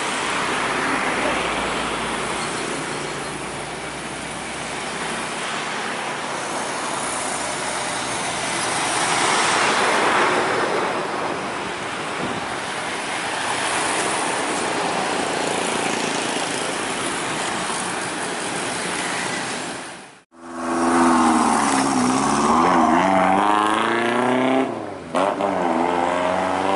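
Steady roadside traffic noise as heavy vehicles pass. After a short break about 20 seconds in, a heavy vehicle's engine revs hard close by, its pitch dipping and climbing again as it shifts through the gears.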